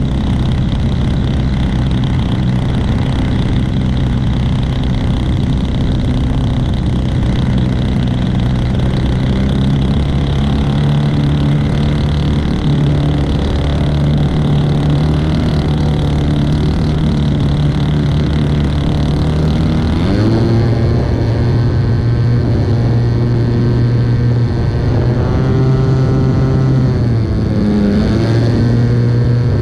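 The engine and propeller of a Senior Telemaster RC model plane running at high power in flight, a steady loud drone. About twenty seconds in the note changes, and near the end the pitch dips and climbs back up.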